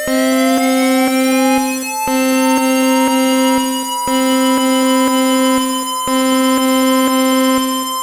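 Synthesized emergency alert tone: a steady buzzing tone repeating in pulses about two seconds long, with a siren-like sweep rising in pitch under it that levels off about four seconds in. It is the attention signal of an emergency alert for an earthquake.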